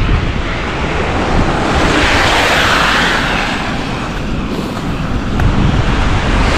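Wind buffeting the microphone with a low rumble, over the hiss of road traffic on wet, snowy pavement; the hiss swells and fades around the middle, like a car passing.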